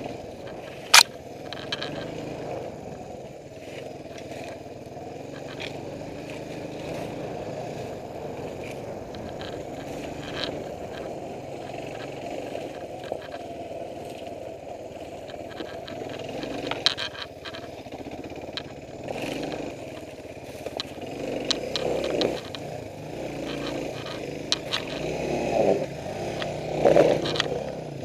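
Suzuki DR350's single-cylinder four-stroke engine running at low speed over rough ground, with brush scraping and stones knocking against the bike. The engine picks up a few times in the last several seconds.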